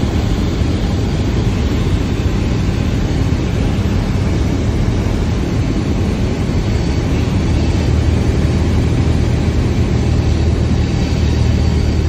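Cessna 172's piston engine and propeller running at reduced power on final approach, heard inside the cabin over rushing airflow: a steady low drone that grows a little stronger about two-thirds of the way through.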